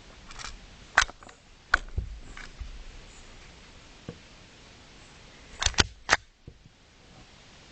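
Sharp plastic and metal clicks and clacks of a replica Glock pistol being worked by hand, its mechanism jammed by a stuck dummy casing: a few single clicks in the first two seconds, then three quick clacks in a row later on.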